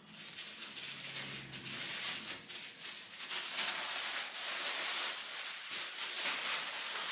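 Paper wrapping around a rolled poster rustling and crinkling continuously as it is handled and unwrapped.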